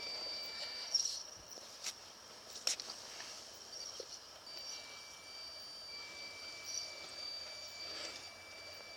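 A 6x6 RC crawler's electric motor and drivetrain give a steady high whine that stops about a second in and comes back around four and a half seconds. A few sharp knocks, the tyres on the logs of the bridge, fall in between.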